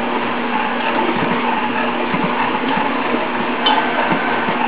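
KitchenAid K45SS and Electrolux DLX stand mixers running side by side, kneading bread dough: a steady motor hum with irregular low thumps. A brief metallic clink about three and a half seconds in.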